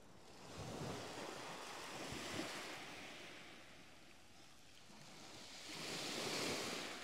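Small waves breaking on a shingle beach: two swells of surf, the first about half a second in and a louder one near the end.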